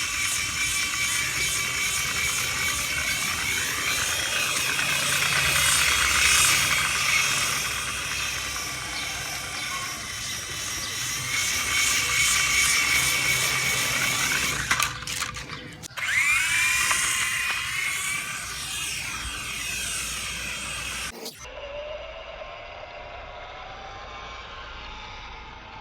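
RC helicopter's motor and rotor whining in flight, the pitch drifting up and down with the throttle. It drops out briefly about 15 seconds in and then spins back up in a rising whine. A few seconds later it cuts to a quieter, duller whine.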